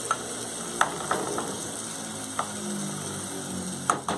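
Ground beef frying in a saucepan, stirred with a spatula that clicks and scrapes against the pan, over a steady sizzle. A quick run of clicks comes near the end.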